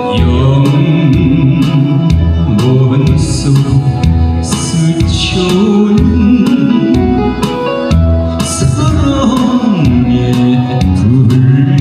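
Male voice singing a Korean trot song into a microphone, over an instrumental accompaniment with a steady beat.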